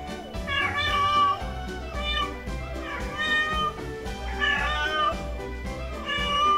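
A domestic cat meowing loudly about five times in a row, drawn-out calls standing over the trophy it has brought in: the noisy announcing call of a cat bringing home its catch.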